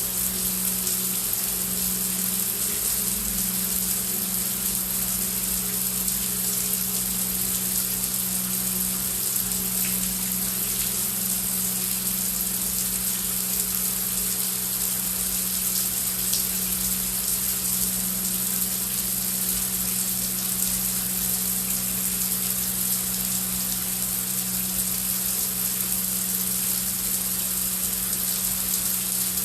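Heavy rain falling steadily as a dense, even hiss, over a low steady drone.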